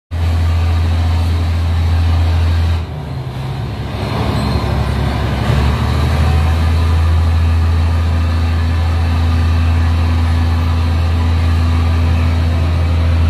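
Marine diesel engine running with a deep, steady drone. The sound dips about three seconds in and builds back up over the next few seconds.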